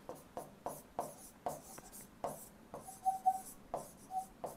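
Pen writing on the glass face of an interactive board: a quick run of short scratchy strokes as letters are formed, with a few brief high squeaks of the tip on the glass about three and four seconds in.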